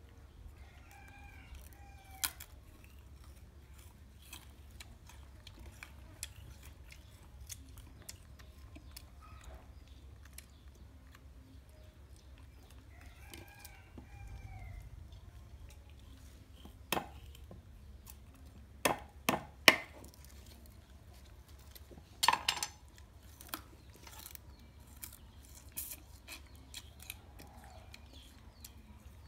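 Sharp cracks and knocks of a knife paring and cutting sugarcane, clustered and loudest about two-thirds of the way through. A rooster crows a couple of times.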